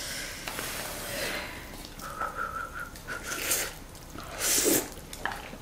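Hot noodles being slurped with chopsticks from cups in quick airy sucking pulls, with a brief thin whistle-like tone about two seconds in.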